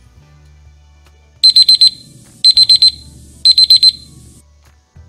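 Countdown timer's alarm going off as it reaches zero, signalling that time is up: a digital alarm-clock beep in three quick groups of four high beeps, about a second apart, starting about a second and a half in.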